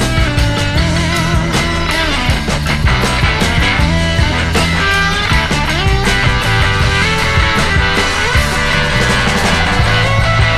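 Background rock music with electric guitar and a steady bass-heavy beat.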